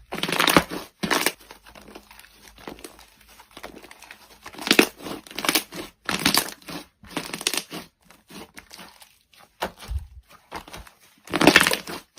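Slime being squeezed and pressed by hand, giving irregular bursts of crackling, crinkly squelches. The strongest come near the start and near the end, with quieter crackle between.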